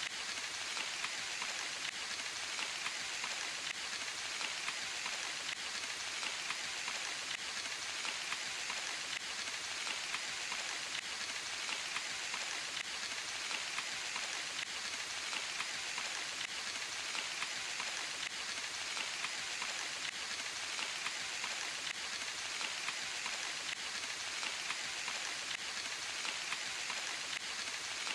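Steady rain falling in a forest, an even hiss of many small drops pattering on leaves and ground, unchanging throughout.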